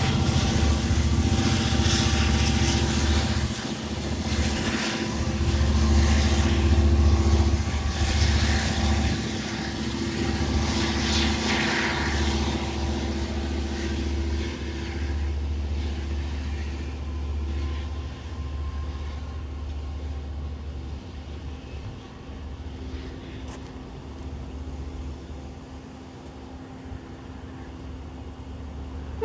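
Train rumbling with a steady low engine drone and hum, fading away gradually as it pulls off.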